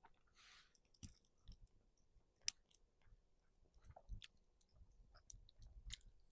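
Near silence, with a few faint scattered clicks and soft knocks; one sharper click about two and a half seconds in.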